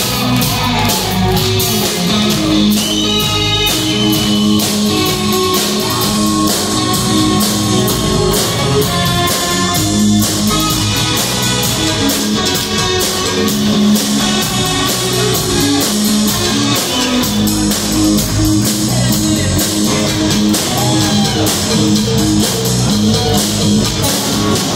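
Live rock band playing: electric guitar lead lines over drums, with a few bent notes.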